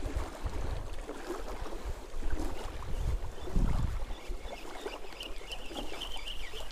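Wind buffeting the microphone in low, gusty rumbles, over water lapping, with small clicks from the rod and reel being handled. A faint, thin high note comes in over the last second and a half.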